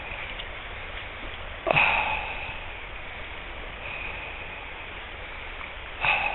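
Steady rush of shallow river water over a riffle, broken twice by a brief loud whoosh, the first a little under two seconds in and the second near the end.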